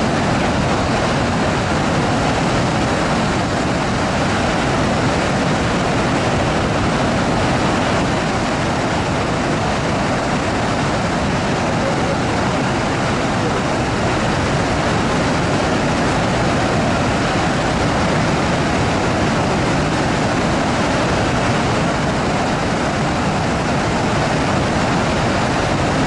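A large waterfall in full flood: a loud, steady rush of falling water that does not let up.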